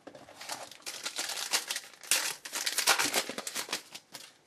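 A trading-card pack's wrapper being torn open and crinkled: a dense run of crackling that stops shortly before the end.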